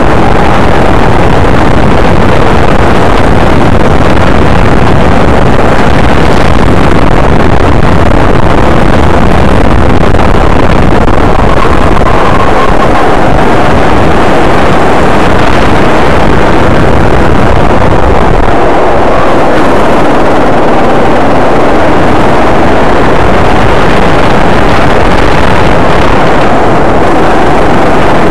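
Go-kart engine running hard as the kart laps the track, picked up by a camera mounted on the kart itself. Loud and steady, with wind rushing over the microphone.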